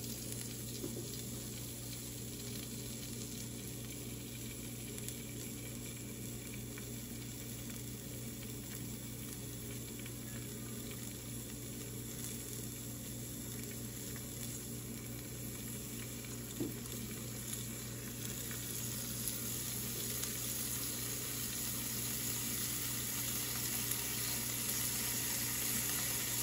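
Bacon strips sizzling in a dry pan, cooking in their own fat with no oil added. The sizzle grows louder through the second half as the pan heats, with a couple of faint taps as strips are laid in.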